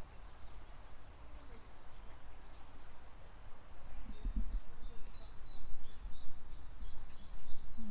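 Small birds chirping and twittering in the trees, a run of short high chirps that starts about halfway through, over a steady low rumble.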